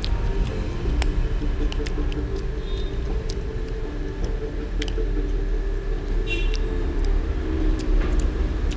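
Metal spoon clicking and scraping against a glass plate while scooping rice, with a few sharp clinks. Under it runs a steady low rumble.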